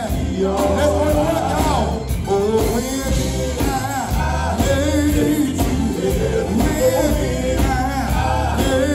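Live gospel music: a male vocal group singing with vibrato over electric bass guitar and band.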